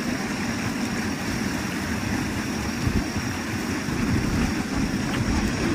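Steady rush of running water with a low rumble underneath.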